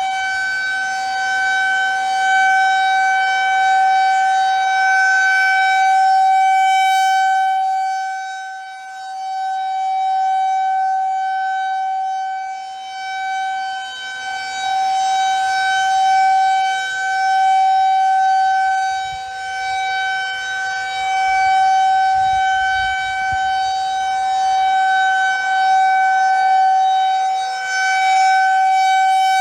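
Federal Signal 2001 rotating electromechanical tornado siren sounding a steady single tone, its pitch unchanging while its loudness swells and fades slowly as the rotating head sweeps toward and away.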